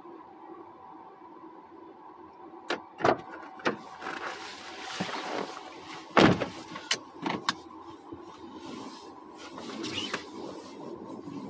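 A steady hum inside a stationary car, with a string of sharp clicks and knocks and some rustling over it; the loudest knock comes about six seconds in.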